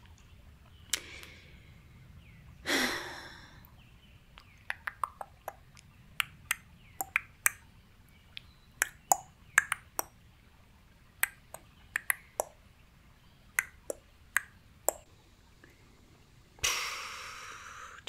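A person breathing out audibly twice in the first few seconds and again near the end, with a long run of irregular small sharp clicks in between, all close to the microphone.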